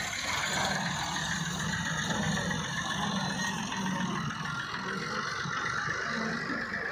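Diesel engine of a Massey Ferguson 375 tractor running steadily as it tows a trailer loaded with soil, with a wheeled excavator's diesel engine running alongside.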